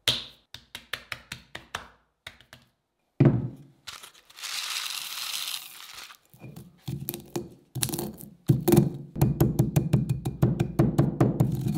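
Granite pestle pounding whole peppercorns in a heavy granite mortar, with knocks and grinding crunches that speed up to about five strikes a second near the end. Before that come a few light clicks, a heavy thump about three seconds in, and a short rattle like peppercorns poured into the stone bowl.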